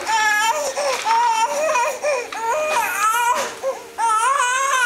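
A toddler's high-pitched whining cries, a run of wavering, rising-and-falling vocal sounds broken by short pauses.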